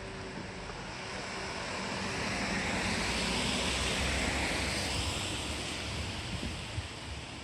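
A steady rushing noise that swells over a couple of seconds, peaks about four seconds in, then fades, over a low rumble.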